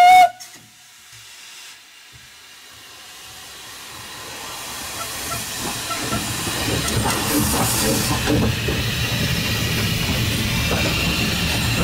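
Footplate of narrow-gauge steam locomotive No. 7, a new-build Tattoo-class engine: its steam whistle cuts off just after the start. After a short lull, steam hiss and the running noise of the locomotive and train build up steadily as it pulls away.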